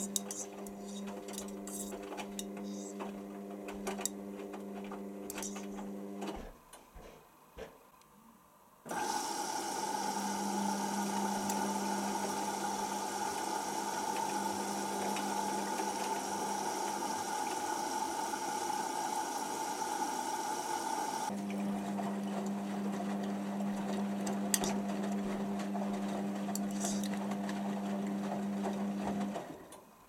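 Hotpoint Aquarius WML540G washing machine mid-wash: the drum motor hums as the drum tumbles the wet load, with light clicks and sloshing. It pauses about six seconds in. A louder, steady hiss and hum then runs for about twelve seconds, before the tumbling hum returns and stops shortly before the end.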